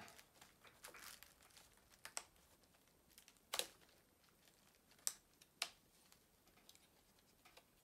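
Quiet handling of a Canon 80D DSLR body with four sharp clicks, the last two close together, as a memory card is put into it.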